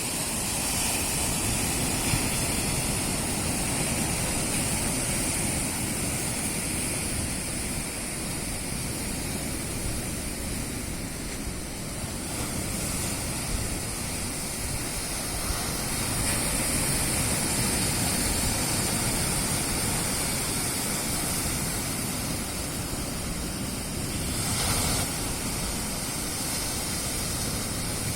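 Sea surf washing and breaking on the shore, a steady rushing that swells louder about halfway through and again briefly near the end.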